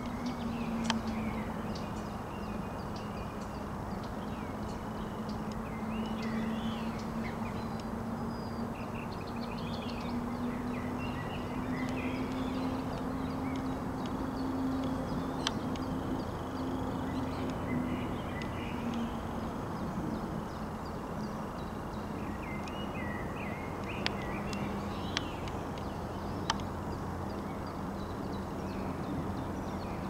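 Small songbird singing in short, varied chirping and warbling phrases, over a steady low hum, with a few sharp ticks.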